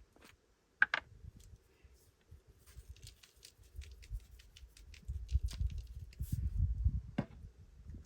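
Seasoning being shaken onto a raw steak: scattered light ticks and a patter of grains, with a sharp click about a second in and some handling bumps and rumble later.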